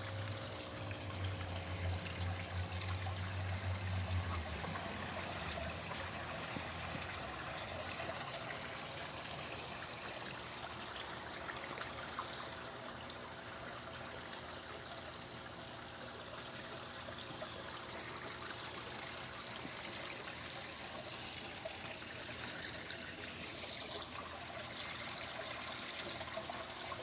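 Water from a koi pond's small waterfall spilling over the edge and trickling steadily into the pond, with a low rumble during the first few seconds.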